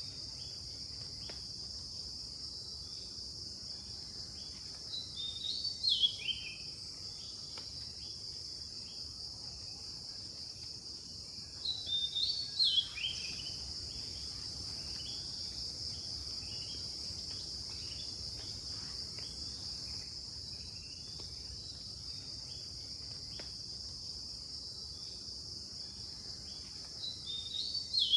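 Night insects keeping up a steady high-pitched drone, with scattered faint ticks. Three times, an animal gives a short call of quick notes that fall in pitch; these calls are louder than the drone.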